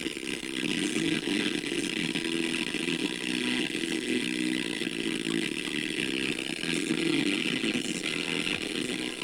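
Harsh, buzzy, distorted audio from small speakers driven by a Marantz 1520 stereo receiver with a faulty output channel, a steady raspy noise rather than clean sound. The owner takes it for a biasing fault; the channel turns out to have an open 0.47 ohm emitter resistor.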